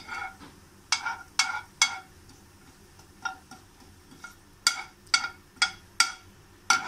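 Steel spoon stirring cumin seeds in hot oil in a non-stick frying pan, knocking against the pan about a dozen times with short ringing clinks at an uneven pace.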